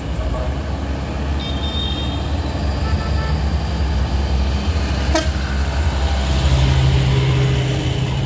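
Diesel engine of a Mitsubishi Fuso Colt Diesel light truck rumbling steadily as it climbs a steep hill close by, amid the engine noise of queued cars following it up. A steadier low engine note joins about six seconds in.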